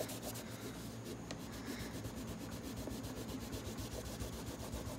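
Cloth rag scrubbing rapidly back and forth over the plastic case of an Amiga external floppy drive, wiping off sticky rubber-foot residue softened with WD-40. The scrubbing is steady and continuous, a fast run of fine rubbing strokes.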